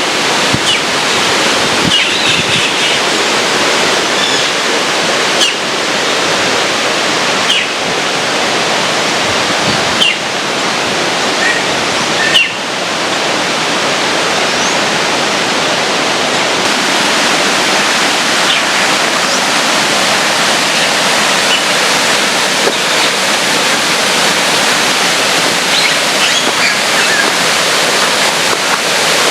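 Small waterfall rushing steadily, loud and even, with a few faint high chirps over it.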